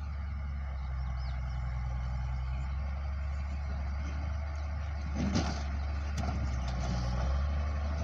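Motor grader's diesel engine running steadily as its blade pushes a windrow of rocks and soil, with a short louder crunch about five seconds in.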